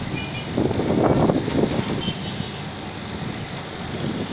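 Outdoor city ambience: a steady rumble of distant traffic with wind gusting on the microphone, strongest about a second in, and a few faint, short high chirps.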